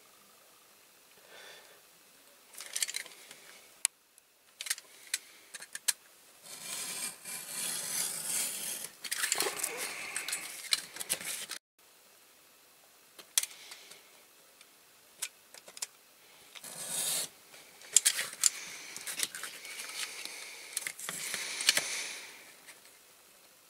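Printed, lacquered card being cut out for a model's box: sharp snips and clicks with long stretches of card rustling and scraping as it is cut and handled.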